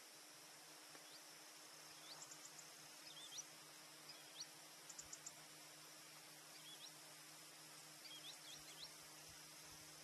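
Faint, high, thin chirps of small songbirds, a few short notes and quick rising sweeps in scattered clusters about two, five and eight seconds in, over a steady faint hiss.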